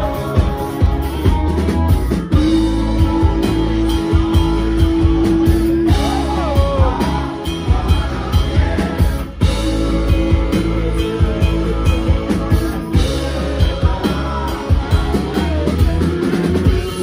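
Rock band playing live: drum kit and electric guitar under a singer, with a long held note twice.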